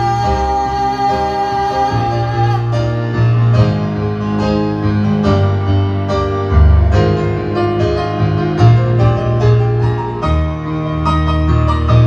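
Piano playing an instrumental passage of a slow pop ballad, with chords and a melody line and new notes struck from about three seconds in.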